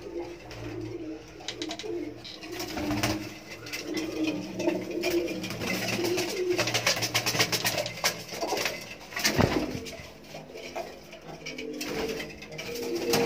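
Domestic pigeons cooing over and over, low rolling coos overlapping, with scattered sharp clicks and knocks, the loudest about nine seconds in.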